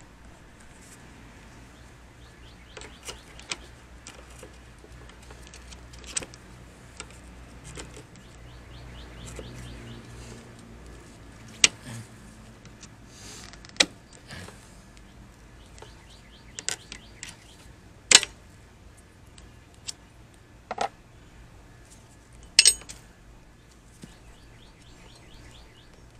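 Plastic clips and brackets of a Porsche Boxster 986 radiator-and-fan assembly being pried loose with a screwdriver and handled, giving a scatter of separate sharp clicks and knocks.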